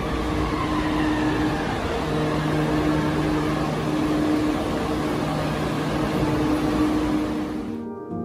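Yokohama Municipal Subway Green Line linear-motor train pulling into an underground station and braking: steady running rumble and hiss with a humming drone and a whine that falls in pitch early on. The sound cuts off abruptly near the end.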